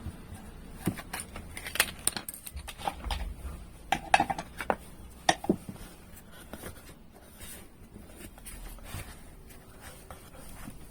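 Light knocks, clicks and a scrape from small hard objects being handled on a workbench, bunched in the first half, then softer fiddling.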